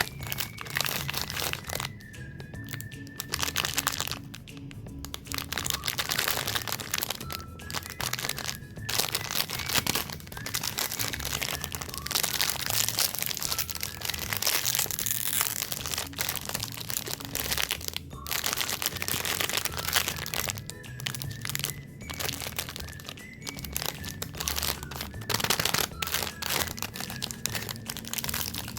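Close-up eating of crunchy cookies and cake: dense, irregular crackling and crunching bites and chews, with music underneath.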